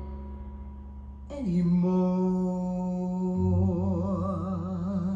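Closing bars of a slow vocal ballad played through hi-fi speakers: after a softer moment, one long note with vibrato starts about a second in and is held.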